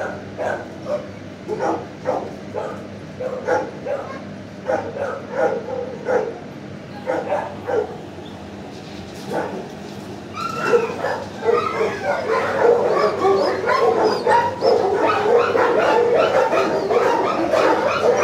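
Dogs in a shelter kennel block barking and yipping. The barks are scattered at first, then from about ten seconds in they become a denser, louder run of overlapping barks and yips.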